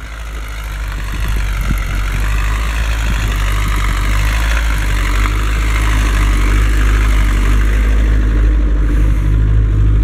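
A car engine running steadily at idle. It grows louder over the first few seconds, then holds steady.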